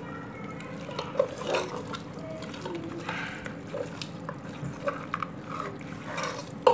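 A hand kneading and mixing raw beef chunks with wet spice paste in an aluminium pressure cooker pot: irregular wet squishing and stirring, with scattered short clicks and knocks against the pot.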